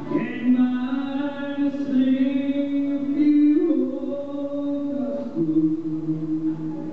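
Live country ballad: a man sings long held notes, stepping between a few pitches, over a country band with steel guitar.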